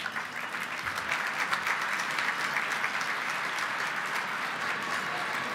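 A large audience applauding, a dense, steady clapping of many hands.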